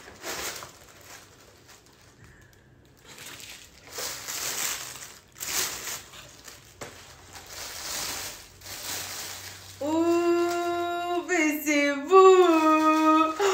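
Tissue paper rustling and crinkling in bursts as it is pulled out of a box, then from about ten seconds in a woman's voice sings long held notes that slide up and down in pitch.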